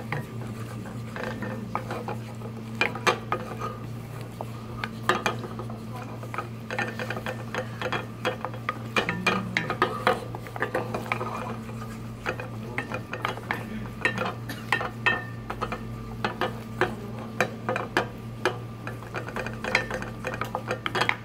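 Wooden spatula stirring and scraping a thick roux around a small stainless steel saucepan: a fast, irregular run of scrapes and taps against the pan, kept up nonstop so the roux browns without scorching. A steady low hum runs underneath.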